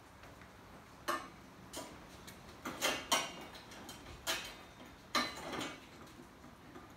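Metal parts of a Logrite BTS hauler cart clicking and clinking as they are fitted together by hand, likely the bent hitch pin going into the frame: about half a dozen sharp, irregularly spaced clicks.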